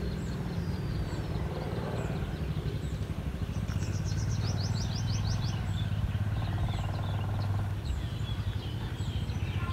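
A steady low engine hum, a little louder in the middle, with a bird's quick run of short high chirps about four to five seconds in and a few scattered faint chirps.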